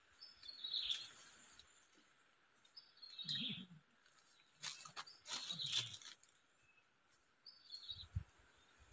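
A bird calling three times, a short high call falling slightly in pitch about every three to four seconds, with a few faint bumps and rustles in between.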